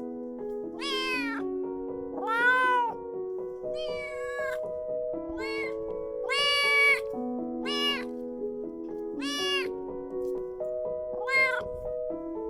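Kitten meowing repeatedly, about eight short meows, each rising and falling in pitch, over background music of held keyboard notes.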